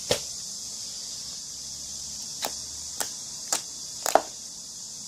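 Slime being pressed and squeezed by hand, giving about six sharp pops at uneven intervals, the loudest near the end, over a steady high hiss.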